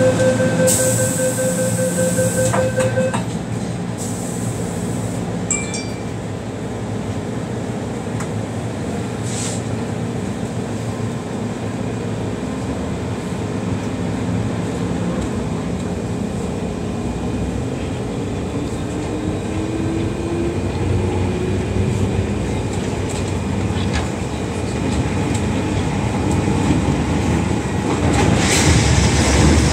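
Inside an MTR Tsuen Wan Line carriage, a rapid run of door-closing warning beeps sounds for about three seconds. The train then pulls away over steady running noise, its traction motors whining in a slowly rising pitch as it gathers speed. The running noise grows louder near the end.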